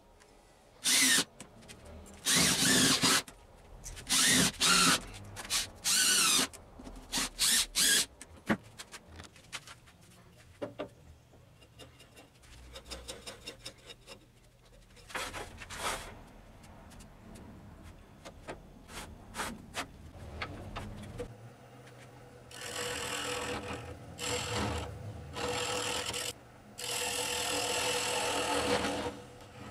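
A power drill drives screws through a metal lathe faceplate into a green log in several short bursts, each rising in pitch. Later a wood lathe runs steadily while a gouge cuts the spinning log, with a brief break partway through.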